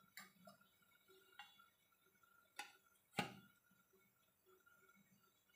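Near silence: room tone with a faint steady hum and four small clicks or knocks, the loudest about three seconds in.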